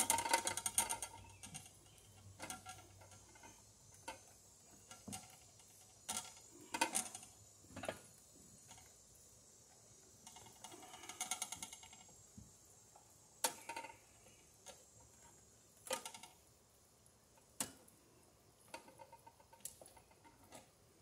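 Scattered light clicks, knocks and scrapes of electrical wires being handled and fed through a conduit into an RV receptacle box, with two brief rattling scrapes, one at the start and one about eleven seconds in.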